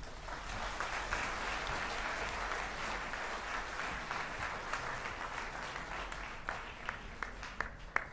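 Audience applauding, thinning out to a few scattered claps near the end.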